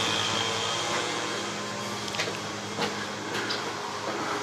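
Steady mechanical hum, like a fan or motor running, with a few faint clicks and taps.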